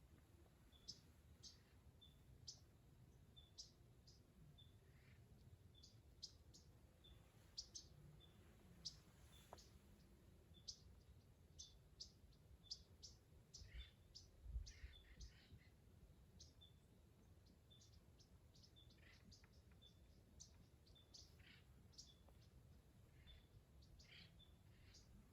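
Near silence with faint birds chirping: many short high chirps, with a short note repeated about once a second. A low thump about halfway through.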